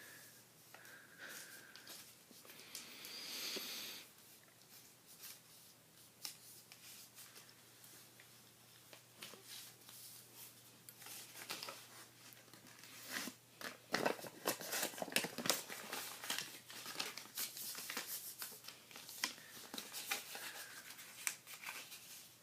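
A sheet of origami paper being folded and creased by hand: crinkling and rustling with short, sharp scrapes. There is a longer rushing scrape about three seconds in, and the handling gets busiest over the second half.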